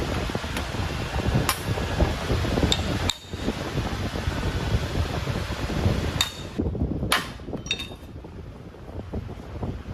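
Irregular hammer strikes on a car's sheet-metal body panel during panel beating: about half a dozen sharp hits over a low rumbling background.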